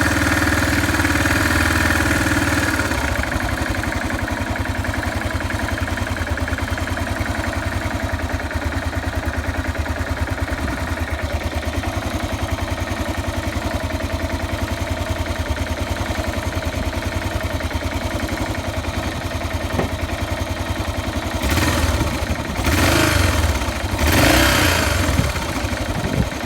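Yamaha XT 600 (43F) air-cooled single-cylinder four-stroke engine running cold. It runs a little faster and louder for the first few seconds, then settles to a steady idle. Near the end it is given three short blips of the throttle.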